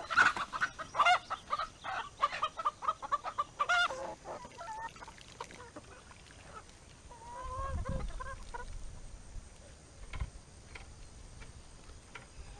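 A flock of chickens clucking as they peck at feed, with a quick run of short clucks in the first four seconds, then fewer and quieter.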